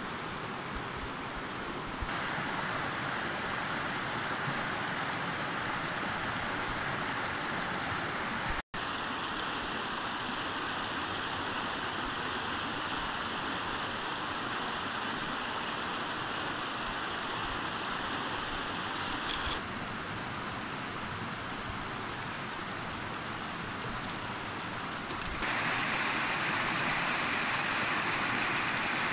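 Rushing water of a shallow rocky stream tumbling over stones: a steady hiss that shifts level abruptly several times and is loudest over the last few seconds.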